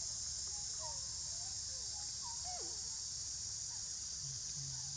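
Steady high-pitched drone of a chorus of insects, with short, quickly rising and falling squeaks from a baby monkey, a few each second.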